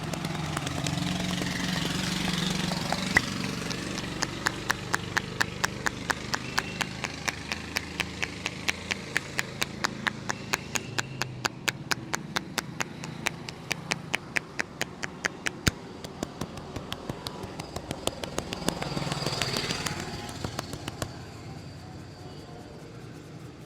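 Rhythmic percussive massage strokes, hands slapping or tapping on the head or body about three times a second, stopping about 21 seconds in, over steady street noise.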